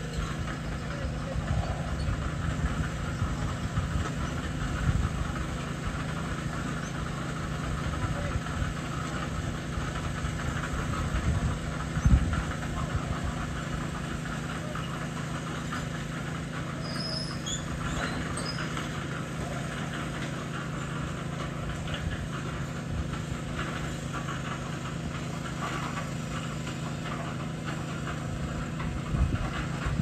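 Portable drum concrete mixer running steadily with a low drone, with a couple of louder knocks about twelve seconds in and again near the end.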